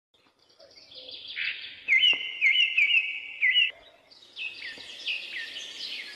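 Birds singing in trees: one bird repeats a short rising whistled note about twice a second for a couple of seconds, then, after a brief pause, a busier spread of high chirps follows.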